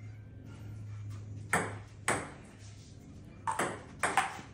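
Table tennis ball being hit back and forth, four sharp clicks of the ball striking the paddles and bouncing on the table. A low steady hum runs under it for the first second and a half.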